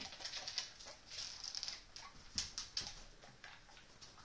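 A small dog moving about as it spins on command: soft ticks and patters, in short clusters, from its claws on the floor.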